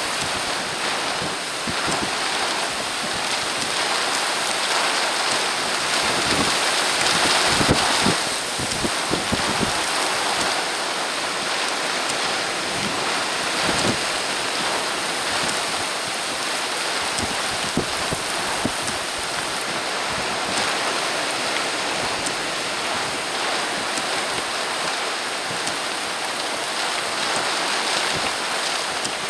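Steady rain pouring down with wind; it swells briefly to its loudest about seven to nine seconds in.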